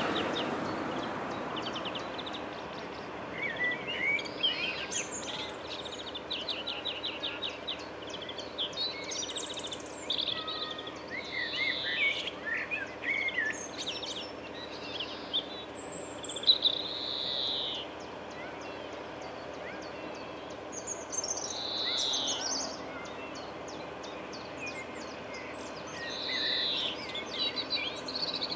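Several wild birds singing and calling, with rapid trills and repeated short whistled notes that rise and fall, over a faint steady background hum.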